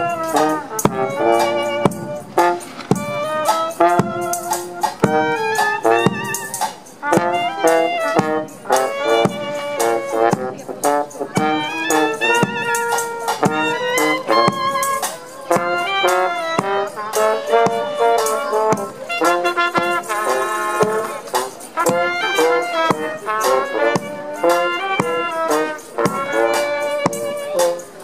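Small street band playing a jazzy brass tune: trumpet and a larger brass horn with clarinet, over a steady beat on a bass drum.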